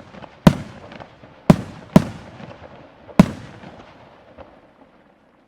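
Aerial firework shells bursting: four loud booms over about three seconds, each trailing an echoing rumble that dies away near the end.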